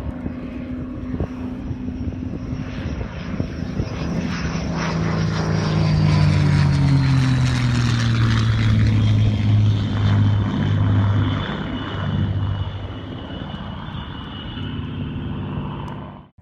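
A World War II propeller-driven aircraft flying past. The engine drone builds to its loudest in the middle of the pass and its pitch falls as it goes by. The sound cuts off suddenly near the end.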